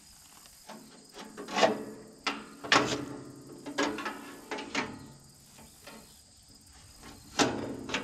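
Broken steel bandsaw blade being worked loose by hand from a Wood-Mizer LT35 sawmill head, scraping and clanking against the metal. There are several sharp metallic clanks that ring on briefly, the loudest about one and a half seconds in, just under three seconds in, and near the end.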